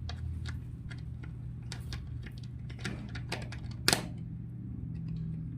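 Scattered light clicks and knocks of parts being handled and fitted together while assembling a chair, with one sharp, loud click about four seconds in, over a steady low hum.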